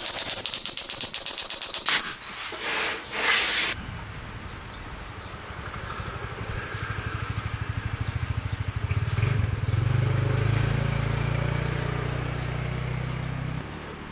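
Pneumatic nailer firing a fast run of nails into MDF panels for about two seconds, followed by a few short bursts of air. From about four seconds the air compressor that feeds it starts and runs with a low, pulsing hum, refilling its tank, then cuts off shortly before the end.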